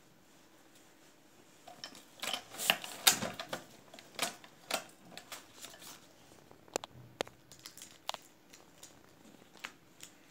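Metal clicks and clatter of a hand-lever cigarette tube filling machine being worked, with a dense run of sharp clicks about two seconds in, then a few single clicks spaced out toward the end.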